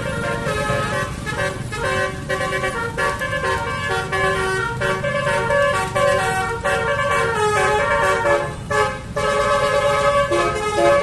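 Basuri multi-tone bus horn playing a quick tune, its blaring notes stepping up and down in pitch.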